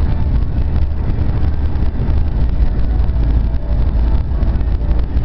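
Wind buffeting the microphone, mixed with road and engine noise from a pickup truck driving along a paved road; a steady, loud, low rumble.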